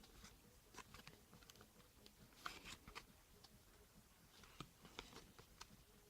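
Faint crinkling and clicking of a shiny trading-card pack and its cards being handled: scattered small ticks, with a denser rustle about two and a half seconds in.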